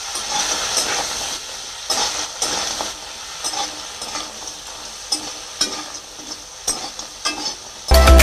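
Crab pieces sizzling in hot oil in a kadai, stirred with a metal spatula that scrapes and taps against the pan at irregular moments. Loud electronic music cuts in abruptly near the end.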